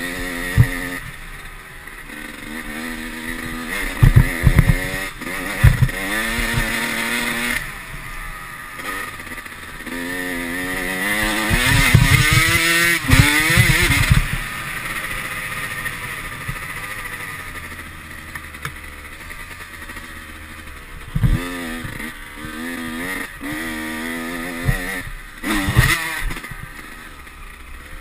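Dirt bike engine heard from the rider's helmet camera, revving up and easing off over and over as it accelerates and slows along the track, with its strongest climb in pitch about halfway through. Several sharp thumps and knocks come in among the engine sound.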